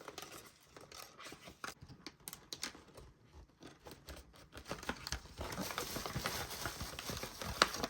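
Paper wrapping and gift-bag filler rustling and crinkling as an item is pulled out of a gift bag, with scattered small clicks and taps, getting busier and louder in the second half.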